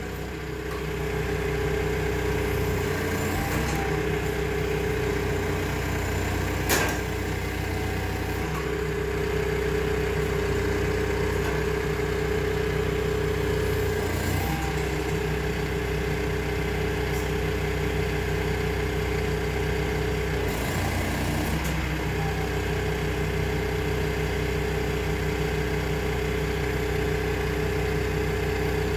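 Genie telehandler's diesel engine running steadily, with a steady whine over it that breaks off briefly three times. A single sharp click about seven seconds in.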